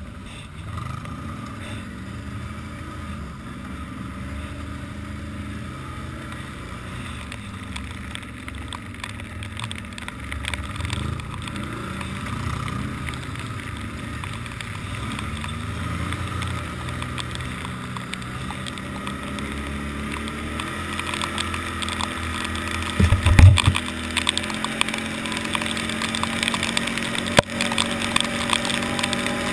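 Can-Am ATV engine running and revving over a rough dirt trail, its pitch rising and falling with the throttle. In the second half it speeds up on a gravel road as wind noise on the microphone grows, and a heavy jolt thumps loudly about 23 seconds in.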